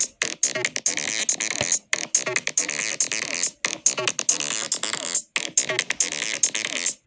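Electronic synthesizer music: a dense, busy pattern of rapid notes and hissy, bright noise. It breaks off briefly and restarts about every two seconds, like a looping phrase.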